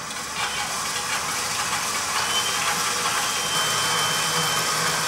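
Bowl-lift stand mixer running at medium speed with its whisk attachment whipping heavy cream: a steady motor hum with a faint high whine.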